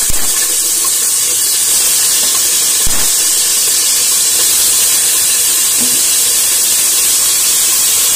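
Washed raw chicken pieces frying in hot oil in an aluminium pressure cooker: a loud, steady sizzle, with a light knock or two as pieces go in.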